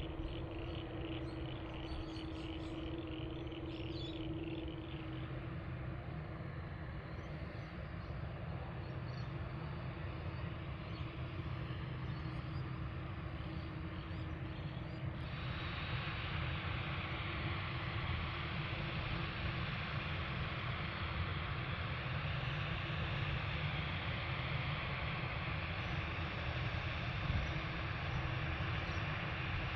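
Jet engine noise from a Boeing 777-300ER's GE90 turbofans, a low steady rumble as the airliner climbs away after takeoff. About halfway through it gives way to the engines of a Boeing 787-9 on the runway, a steadier, higher rushing hiss.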